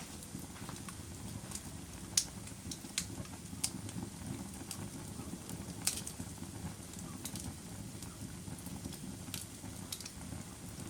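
Wood fire burning in a fireplace: a steady low rumble of flames with scattered sharp crackles and pops, the loudest about two seconds in and again near six seconds.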